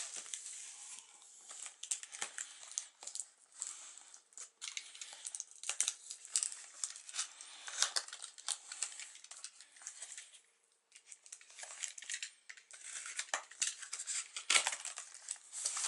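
Packing tape being slit and scraped along the seam of a cardboard box with a hand tool: irregular scratching, crackling and crinkling, with a short pause about ten seconds in.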